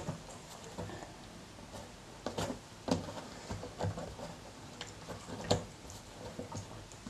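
Scattered light clicks and taps as fingers handle the plastic rotary knobs on a Tascam mixing console, with a few sharper clicks in the middle.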